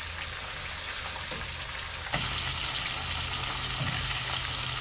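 Floured cod pieces frying in hot oil in a wok: a steady sizzle that gets a little louder about two seconds in.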